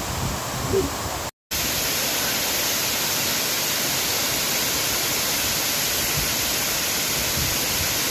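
Waterfall pouring: a steady rushing noise, broken by a brief cut to silence about a second and a half in.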